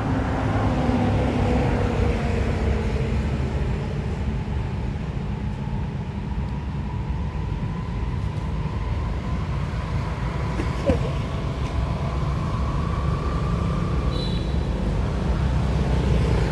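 Steady low outdoor rumble, with a faint drone slowly rising in pitch through the middle and a brief high chirp near the end.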